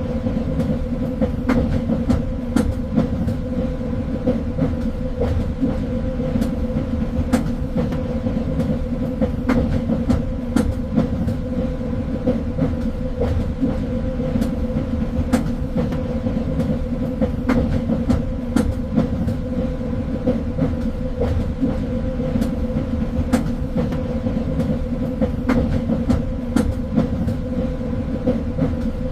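Train running steadily on rails: a constant low rumble and drone with scattered irregular clicks and rattles from the wheels and cars.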